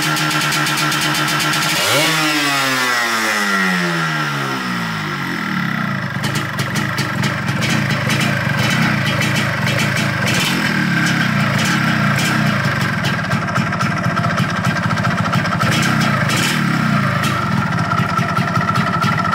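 Yamaha RXZ 135's single-cylinder two-stroke engine running at high revs, then the revs fall away over a few seconds from about two seconds in and settle to an idle with rapid popping.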